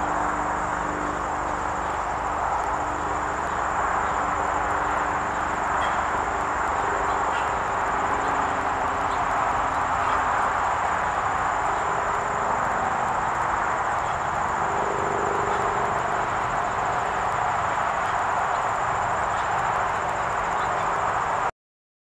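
Steady outdoor evening ambience: an even rushing noise with a thin, continuous high-pitched insect drone over it, cutting off abruptly near the end.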